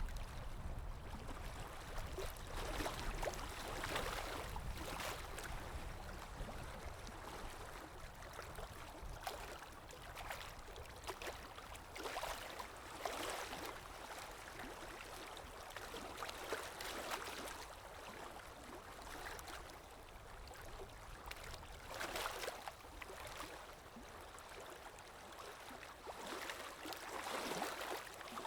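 Sea waves washing in, an even rush of water that swells into a louder surge every few seconds.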